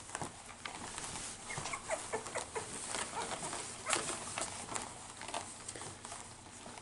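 Newborn cockapoo puppies, about two and a half weeks old, squeaking and whimpering in many short, high chirps, amid light scuffling in the whelping box.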